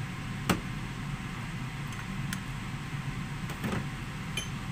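A steady low background hum, with one sharp click about half a second in and a few fainter clicks and ticks later.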